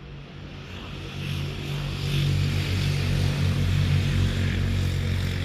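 ChME3 shunting diesel locomotive's six-cylinder diesel engine running with a steady low drone, with rolling noise from the wheels. It grows louder over the first two seconds as the locomotive comes close, then holds.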